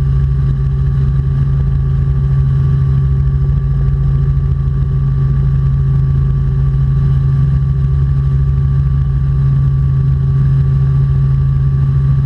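Robinson R44 Clipper II helicopter in flight, in a gentle descent: a steady, loud low drone of engine and rotor with a thin higher whine running through it.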